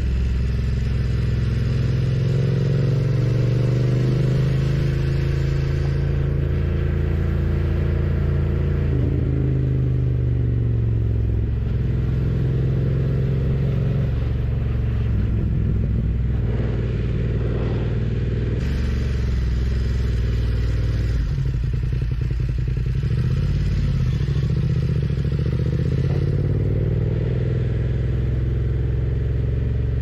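BMW F900R's parallel-twin engine running on the move, its note rising and falling with the throttle and gear changes.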